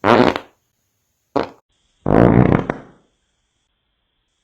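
Three fart noises: a short one at the start, a brief one about a second and a half in, and a longer, louder one about two seconds in.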